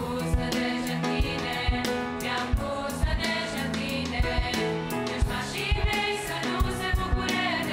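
Girls' choir singing a Romanian Christian hymn in harmony, with piano and a steady drum beat underneath.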